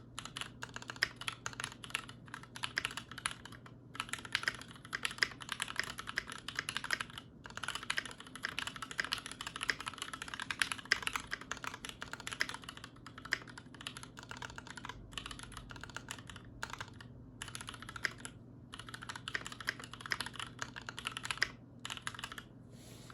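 Typing on an IDABAO ID80 mechanical keyboard with Gateron Milky Yellow linear switches, lubed with Super Lube synthetic oil, under Akko keycaps. It is a fast, continuous stream of keystroke clacks, broken by a few short pauses, and stops just before the end.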